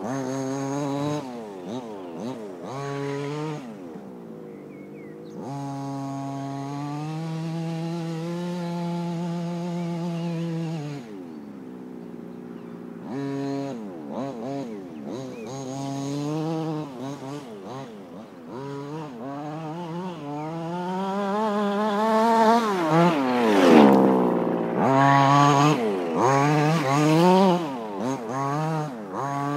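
Kingmotor T2000 1:5-scale RC car's small two-stroke petrol engine with a dual-pipe exhaust, revving up and down through turns. A few seconds in it holds one steady high rev for several seconds. Later it passes close by with a loud sweep down in pitch.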